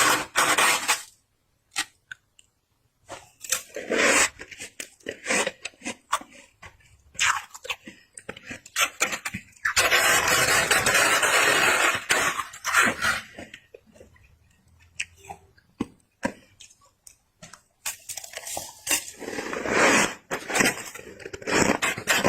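Close-up biting and chewing of freezer frost, with crisp, squeaky crunches coming in irregular bursts. About ten seconds in, a few seconds of continuous rasping noise.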